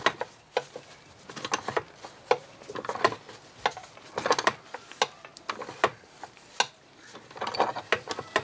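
Pipe wrench working a seized transom clamp screw out of a Johnson 25 hp outboard's clamp bracket: irregular metallic clicks and clanks, in clusters of a few a second, as the wrench is worked back and forth on the screw.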